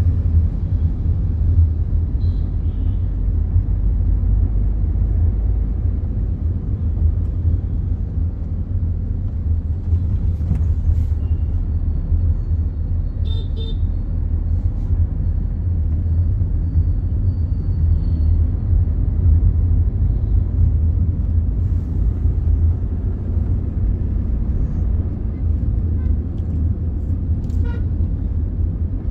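Steady low rumble with no clear rhythm, with a few faint short high chirps about two seconds in and about thirteen seconds in.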